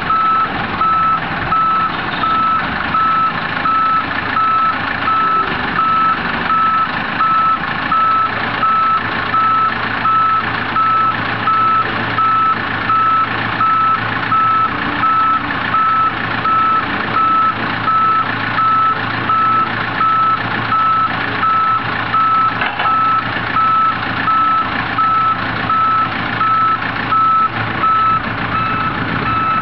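Boat travel lift's warning beeper sounding in evenly repeated beeps, over the steady running of the lift's engine, while it lowers a boat onto keel blocks.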